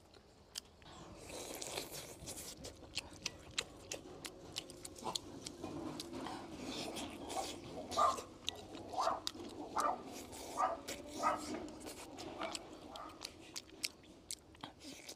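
A person eating: chewing and biting food, with many small clicks of utensils and mouth sounds. In the second half come five short, pitched squeaks about a second apart.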